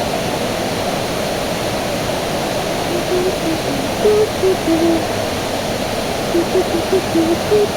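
Steady rush of a waterfall, with two runs of short, low notes that step up and down in pitch, about three seconds in and again near the end.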